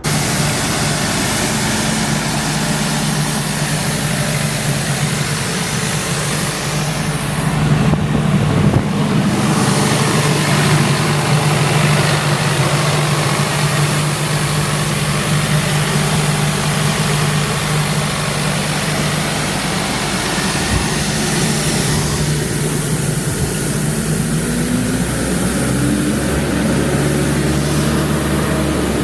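Cummins QSB4.5 four-cylinder diesel engine of a Doosan XP375 towable air compressor running steadily. There is a louder rush about eight seconds in, and the engine note climbs in pitch over the last several seconds.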